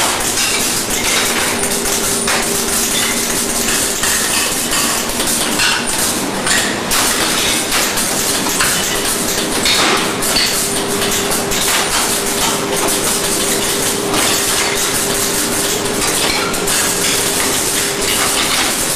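PVC label production line running: continual light metallic clinking and clatter over a steady machine hum, which drops out for a few seconds midway.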